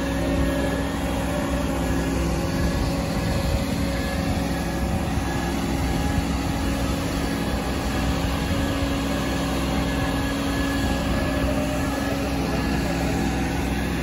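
Heavy engine of a red rubber-tyred gantry crane running steadily, a constant low drone.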